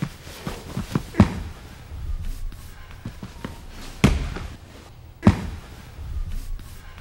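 Heavy thuds and bumps of bodies and feet on a training mat, with three loud landings and smaller knocks and shuffles between them.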